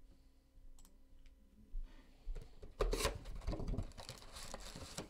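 Foil trading-card packs rustling and clicking against each other and the cardboard box as they are pulled out of an opened hobby box by hand; a few faint ticks at first, then busy handling from about two seconds in.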